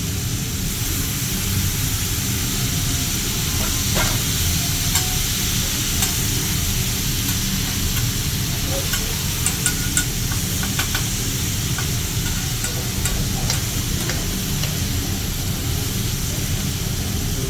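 Food sizzling on a hibachi (teppanyaki) griddle, with a scatter of short sharp clicks of metal spatulas against the griddle.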